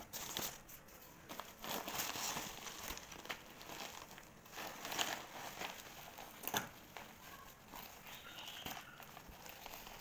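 Bubble-wrap and plastic packaging crinkling and rustling as a taped parcel is handled and pressed, with a couple of sharper clicks partway through.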